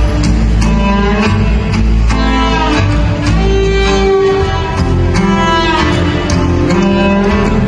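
Acoustic guitar played live through a concert sound system, over sustained low notes from an accompanying instrument.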